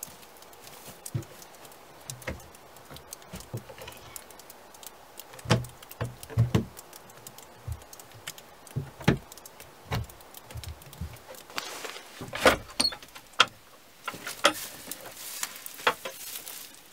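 Footsteps in rubber boots through straw, with irregular wooden knocks and rustling from the barn's boards being handled. The knocks come unevenly, the loudest in the second half.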